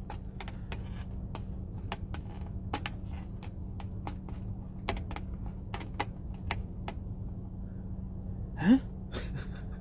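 Steady low hum inside a car cabin, with sharp irregular clicks about twice a second. A short rising call, the loudest sound, comes near the end.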